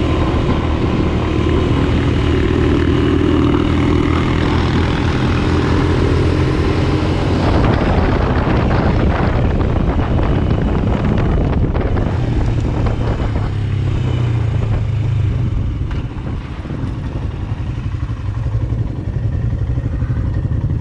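Royal Enfield Himalayan's single-cylinder engine running steadily under way on a gravel road, heard from the bike. Wind rush over the microphone swells in the middle, and the engine eases off about 16 seconds in as the bike slows.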